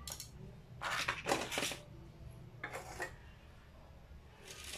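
Small metal parts of a hydraulic floor jack's pump clinking and rattling as they are handled, in a few short spells with the loudest about a second in, over a low steady hum.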